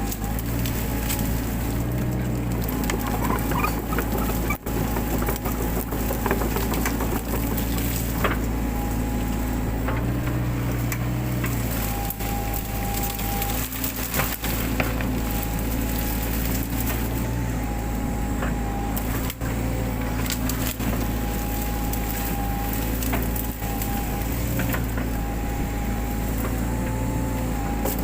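Mini excavator's diesel engine running steadily, its pitch shifting slightly from time to time as the load changes. Scattered sharp cracks and snaps of wood and brush are heard throughout.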